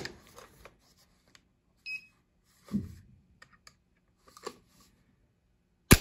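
A factory mil-spec AR-15 trigger being measured with a trigger pull gauge: small handling clicks and knocks, a short beep about two seconds in, then one sharp metallic click near the end as the trigger breaks and the hammer falls.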